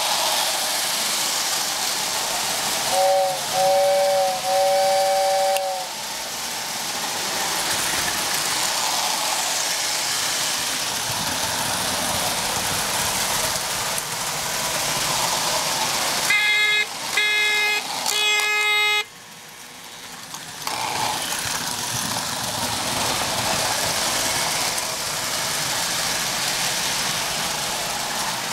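Lionel and Marx O-gauge toy trains running on tinplate track, a steady running noise from their motors and wheels. About three seconds in, a two-note toy train whistle gives three blasts, two short and one longer. About sixteen seconds in, a buzzier horn gives three blasts.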